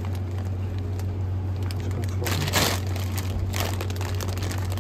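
Plastic bag of frozen chips crinkling as it is handled, with a louder rustle about two seconds in and a shorter one about a second later, over a steady low hum.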